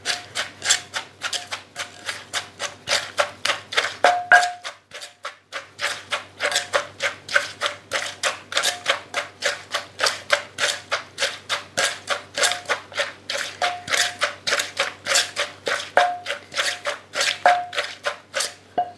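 Pestle pounding Thai papaya salad (som tam) in a mortar, about three strokes a second, with a short pause about four seconds in; some strokes give a brief ringing clink.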